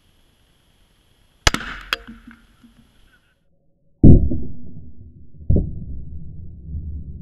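.308 rifle shot: a sharp crack about a second and a half in, with a second crack half a second later. About four seconds in comes a much deeper, drawn-out boom, the loudest sound, then a second deep thump and a low rumble trailing on: the shot's report slowed down.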